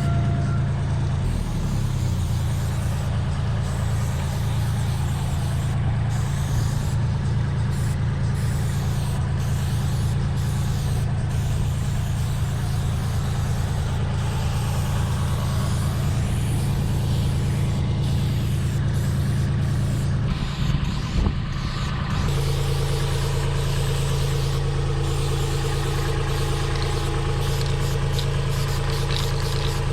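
Engine running steadily with a low hum; a little over two-thirds in, after a brief rattle, its note changes and a higher steady tone joins in.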